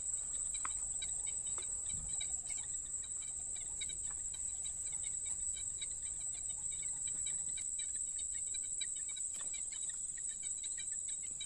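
Steady high-pitched chorus of insects at dusk, one unbroken shrill tone with faint pulsing beneath it.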